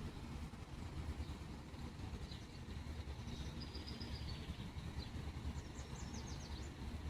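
Small birds chirping: a short high trill about halfway through and a quick run of six or seven short chirps near the end, over a steady low rumble.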